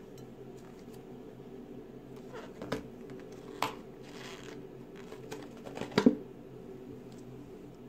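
Small handling sounds of slime-making: a few sharp clicks and taps, the loudest about six seconds in, and a brief rustle around four seconds, over a steady low hum.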